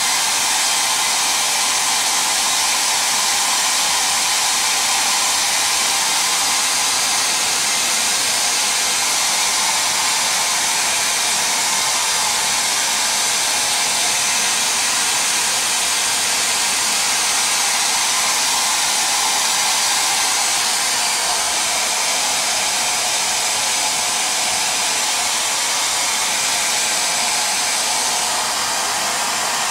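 Conair 1875 handheld hair dryer running at a steady rush, blowing air over a freshly dyed leather seat bolster to dry the coat of leather dye. Its level dips slightly near the end.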